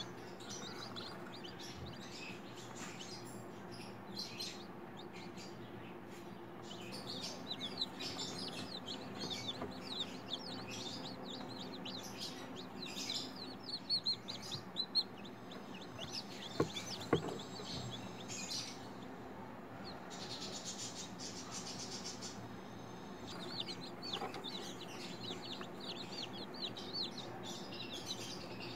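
Chicken chicks peeping: rapid high cheeps, many of them overlapping, over a steady low hum. Two sharp knocks come a little past halfway.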